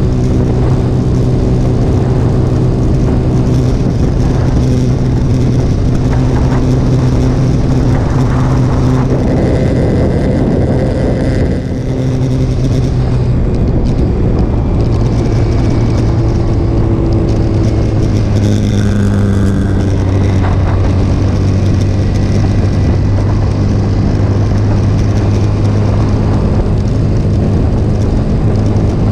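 Motorcycle engine running at road speed with heavy wind rush. The level dips briefly about twelve seconds in, and the engine note then settles a little lower.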